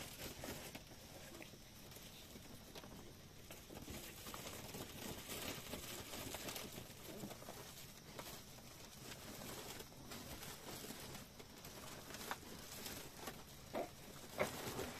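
Faint rustling and patter, with a few sharper light knocks near the end as a large sack is handled on a metal tray.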